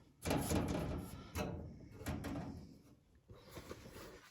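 Sheet-metal body panels being pushed and shifted by hand: scraping and clunking metal in three main bursts over the first few seconds, then fainter rattling.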